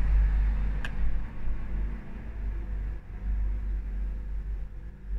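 A low rumble that swells and fades, with a faint click about a second in.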